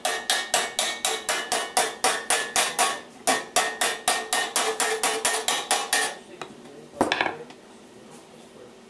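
Body hammer striking sheet-steel fender repair panel in a quick, even run of about four to five ringing blows a second, dressing the panel. The run pauses briefly a little after three seconds, stops about six seconds in, and one more blow follows about a second later.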